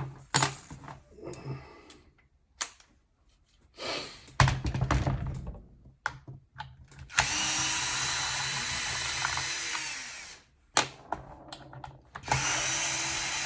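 Cordless screwdriver undoing the machine screws on the back of a nail gun: two steady motor runs of a few seconds each, with handling clicks and knocks between and before them.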